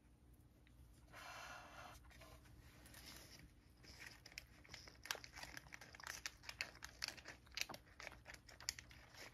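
A cat crunching and chewing dry treat bits (Churu Bits) from a bowl: a faint, quick, irregular run of crisp crunches that grows busier from about four seconds in. A brief rustle about a second in.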